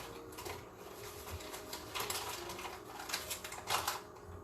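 Kitchen handling noises: a few light clicks and rustles scattered through, as containers and utensils are moved about on the counter.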